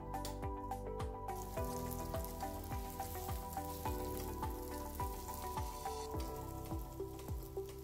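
Chicken cutlets sizzling in hot oil in a frying pan, the sizzle coming up about a second in, under background music with a steady beat.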